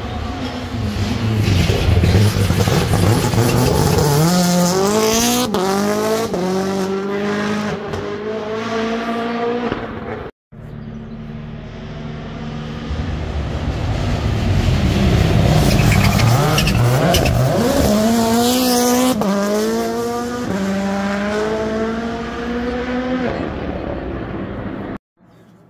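Two rally cars at full throttle, one after the other. Each engine rises in pitch through a series of quick upshifts as it accelerates past and away, and a brief gap about ten seconds in separates the two passes.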